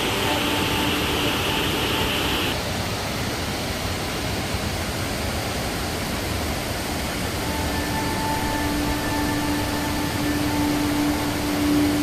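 Steady rushing roar of a large cascade waterfall pouring over a limestone ledge. A higher hiss in the sound drops away about two and a half seconds in.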